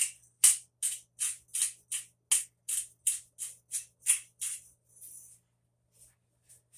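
Hand-twisted pepper mill grinding peppercorns: a rhythmic crunching, about eleven twists at roughly two and a half a second, stopping about two-thirds of the way through.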